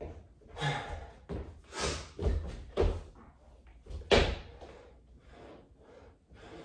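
Thuds of a person doing burpees: a run of knocks as hands and feet land on the floor, with the heaviest thump about four seconds in.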